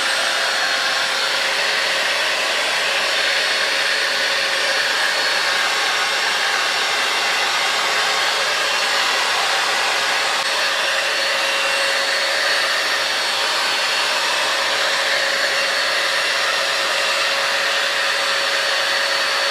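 5-in-1 hot-air styler with its curling-wand attachment running continuously at heat setting 3. A steady rush of blown air carries a constant motor whine.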